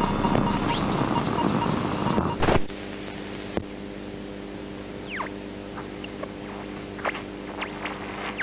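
Electronic sound-design effects: a rumbling noise with high rising sweeps, cut off by a sharp hit about two and a half seconds in, then a quieter steady synth drone with scattered short chirps and blips.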